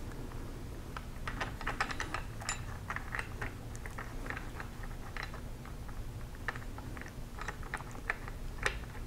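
Handling noise from a camera being carried by hand: a scatter of small, irregular clicks and taps, with one sharper click near the end.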